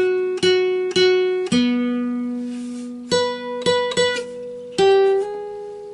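Guitar played slowly: single plucked notes struck one after another and left to ring, with a short pause in the middle and one note sliding down in pitch near the end.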